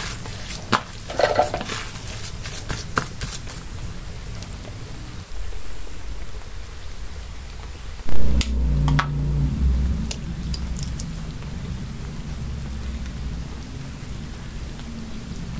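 Soft squishing and small clicks of a hand kneading mashed potato in a plastic bowl. About eight seconds in, a single loud knock as a knife blade strikes a raw egg to crack the shell, followed by quieter crackling as the shell is pulled open.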